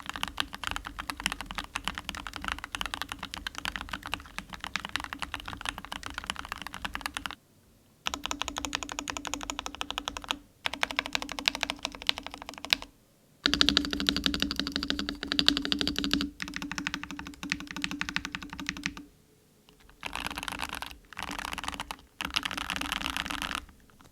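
Rapid typing on an MK870 mechanical keyboard with Gateron G Pro 2.0 yellow linear switches. The keystrokes come in dense runs of clacks, broken by several short pauses, with a brief stop about a third of the way in and more stops toward the end.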